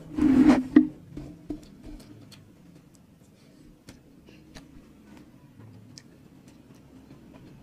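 Close-up mukbang eating sounds of crispy fried danggit and rice: a short loud burst with a sharp click about half a second in, then scattered small clicks and smacks of chewing and of a spoon on the foil-lined tray.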